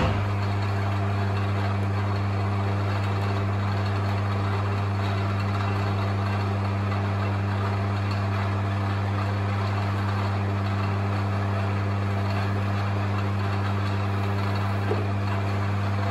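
Optimum TU 3008G metal lathe running steadily with a constant hum, its spindle and chuck turning at about 120 RPM on the lowest speed of its original belt setting.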